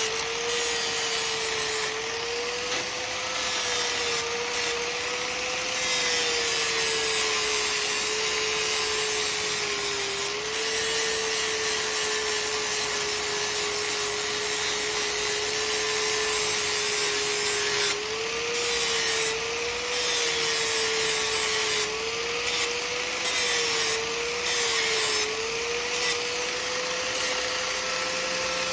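Electric grinder running, its motor tone dipping slightly as it is pressed into the steel, with a grinding hiss that comes and goes: bevelling and cleaning up the quarter-inch steel pieces of a driveshaft loop before welding.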